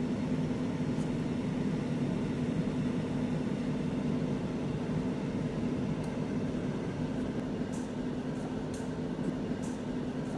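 Two-drawer air fryer running with its upper drawer working: a steady fan hum with a low droning tone, and a few faint ticks near the end.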